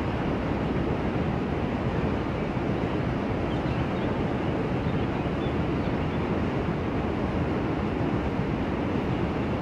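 Container freight wagons rolling across a bridge: a steady, even wash of rolling noise with no distinct beats or tones.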